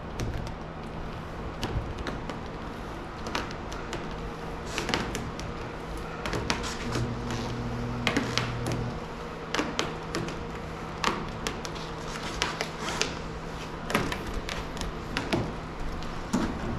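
Vinyl wrap film being handled, stretched and pressed onto a car panel: irregular crackles and taps, with a steady low hum underneath.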